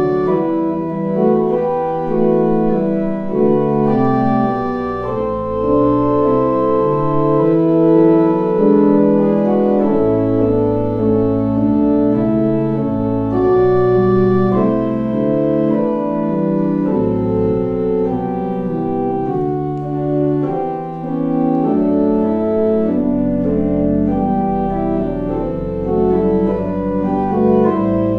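Church organ playing slow music of held chords, with deep sustained pedal notes entering in the bass in the later part.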